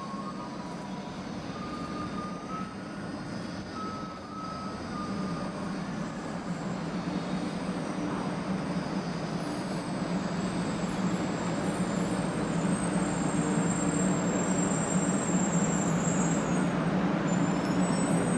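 500 Series Shinkansen pulling slowly into a station platform: its running rumble grows steadily louder as it nears, with a thin high squeal during the second half.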